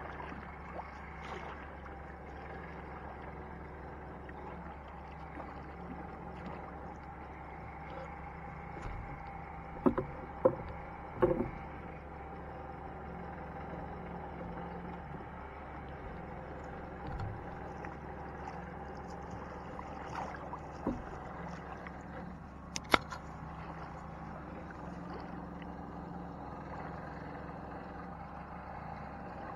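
A steady, engine-like hum with a few sharp knocks of a wooden paddle against a small boat's hull, three close together about ten to eleven seconds in and one more near 23 seconds.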